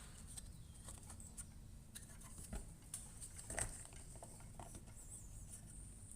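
Faint, scattered clicks and light taps of tools being handled, with a few sharper knocks about halfway through.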